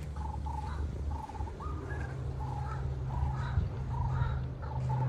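Several birds calling at once, short repeated notes overlapping several times a second, over a steady low rumble.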